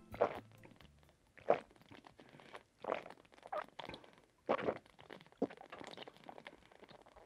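A person gulping a drink down from a glass bottle: about six swallows, roughly one a second.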